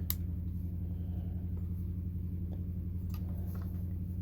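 A steady low hum throughout, with a few faint clicks and taps from the metal phone tripod being handled, the sharpest just after the start.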